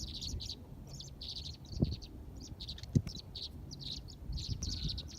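Several small birds chirping in quick, overlapping bursts, with two soft thumps about two and three seconds in over a low rumble.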